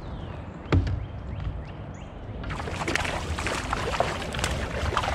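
Water splashing and knocking about a kayak, starting about halfway through, after a single sharp knock on the hull about a second in; a few bird chirps come before the splashing.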